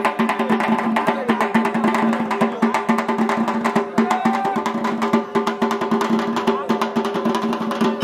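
Fast, continuous drumming on large barrel drums, with a steady held pitch droning beneath it.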